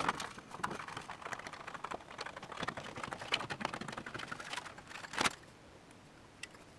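Scissors cutting a thin phosphor bronze sheet into strips: a run of crisp snipping clicks and crackles, the loudest about five seconds in, dying away shortly after.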